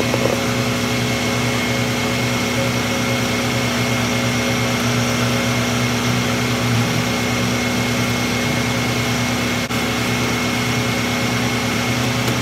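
Loud machinery running steadily at one constant pitch.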